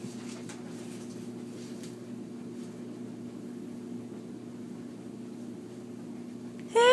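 Steady electrical hum of a running refrigerator, with a few faint scratches. Near the end a short, high-pitched whine starts and is much louder than the hum.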